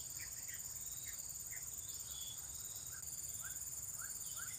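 Steady high-pitched drone of insects in riverside vegetation, with a run of short rising chirps that come more often in the second half.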